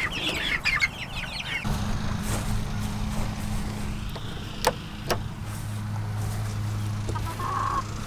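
Young chickens peeping in quick high chirps for about the first second, then a steady low hum with two sharp clicks about halfway through.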